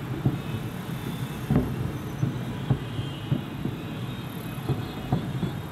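Aerial fireworks shells bursting overhead: a quick, irregular run of bangs, the loudest about a second and a half in, over a continuous low rumble.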